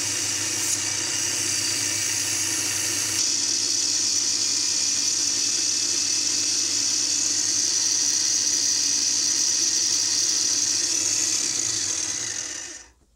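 Homemade wood lathe running, its electric power-tool motor turning the spindle through a belt, while sandpaper is held against the spinning wooden workpiece. The sanding hiss grows louder about three seconds in, and the sound fades out just before the end.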